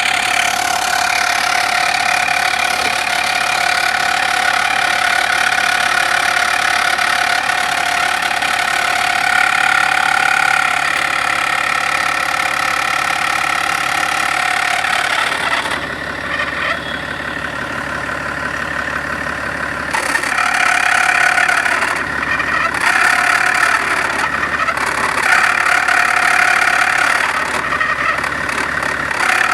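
Car engine running with a knock, the fault the owner is showing. Steady at first; about halfway it drops quieter, then swells and falls back several times.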